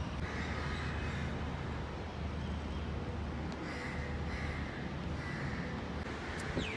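Crows cawing over a steady low outdoor rumble.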